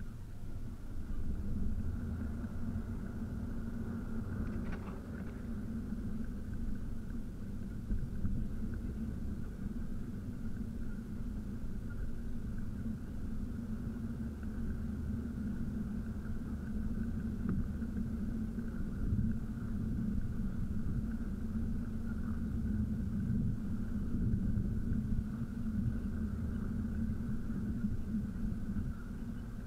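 Steady low rumble of a car driving in traffic, engine and road noise heard from inside the cabin.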